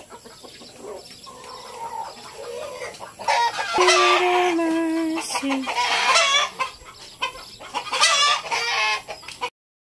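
Native chickens calling: hens clucking, then a rooster crowing loudly from about three seconds in for some three seconds, with another loud call about eight seconds in.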